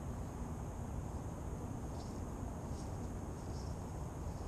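Low, steady rumble of wind on the microphone of a crashed drone's camera lying in grass, with a thin steady high tone and a few faint high chirps about two to four seconds in.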